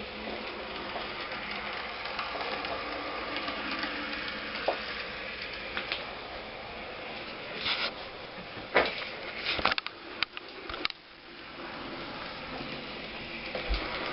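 Model railway train running with a steady whirring hiss, and a run of sharp clicks and clatter about eight to eleven seconds in.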